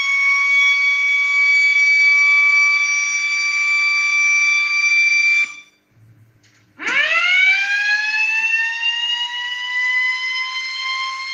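12 V electric motor siren (a small air-raid-style siren) wailing at a steady high pitch. About halfway through it cuts off suddenly. After a second or so of quiet it starts again, its pitch rising quickly at first and then more slowly as the rotor spins back up to full speed.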